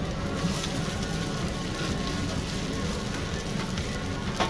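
Noodle sheets sizzling on a hot flat-top griddle, with a metal scraper scraping and clicking against the steel plate; one sharper clack near the end.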